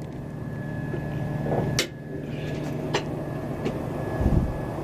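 Aluminium lift-gate platform being unfolded by hand, with sharp metal clanks at about two and three seconds and a dull thud near the end, over a steady machine hum that grows louder.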